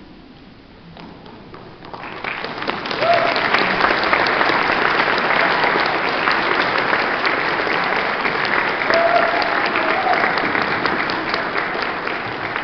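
Audience applause that starts about two seconds in, builds within a second and then carries on steadily, with a voice or two calling out over it.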